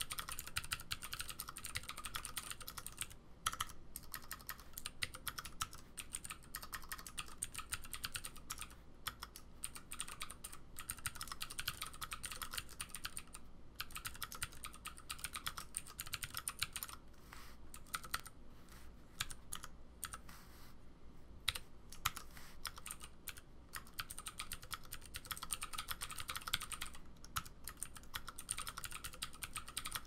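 Continuous typing on a split Ergodox Infinity mechanical keyboard with vintage Cherry G80-1813 MX Blue switches and DSA keycaps: a dense stream of clicky key presses. It thins briefly a few seconds in and again about two-thirds of the way through.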